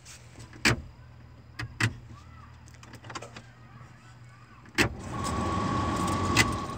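Clicks of dashboard switches and controls in a parked car with the engine off. About five seconds in, an electrical accessory switches on with a steady hissing whir and a faint whine, then cuts off suddenly near the end.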